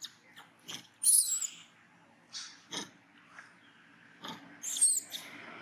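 Baby capuchin monkey making a string of short sounds, with the loudest, high-pitched squeaks about a second in and again near the end.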